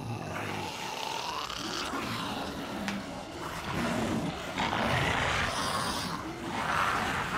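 Walkers (zombies) snarling and growling in rough bursts, with the loudest snarls about five and about seven seconds in.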